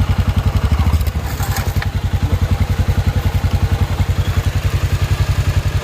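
Single-cylinder motorcycle engine idling, with an even low beat of about a dozen pulses a second. A brief rattle about a second in.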